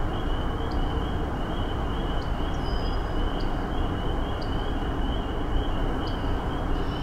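Outdoor evening ambience: a steady low rumbling hiss under insects chirping in a fast, even pulse, with short high chirps every second or so.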